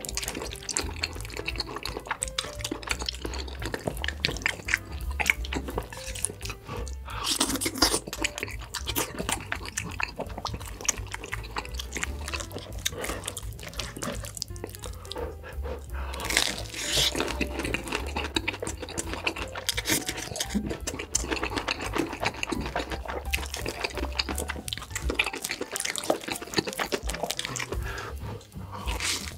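Close-miked eating: chewing and crunching of fried corn dogs with wet, sticky mouth sounds, in dense irregular crackles throughout, over background music.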